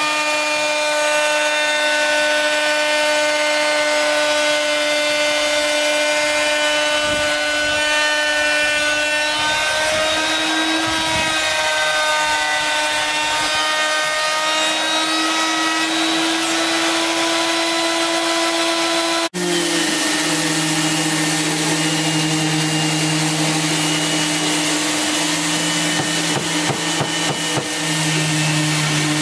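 Table-mounted electric router running with a steady whine while a wooden slat is fed past the cutter, its pitch dipping slightly as the bit cuts. After an abrupt change about two-thirds through, a handheld electric sander with a dust-extractor hose runs against wooden panelling over a lower steady hum.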